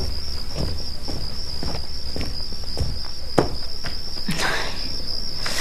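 Crickets trilling in one continuous high, pulsing note, the night ambience of the scene. A few soft knocks sound over it, one a little sharper just past halfway.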